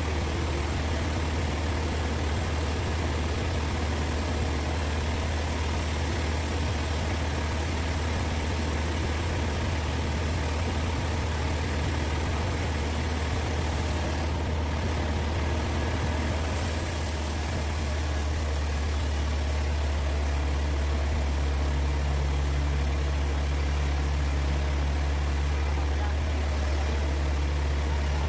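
Sawmill machinery running with a steady low engine drone and an even hiss; the sound shifts slightly partway through, and a second low hum joins it.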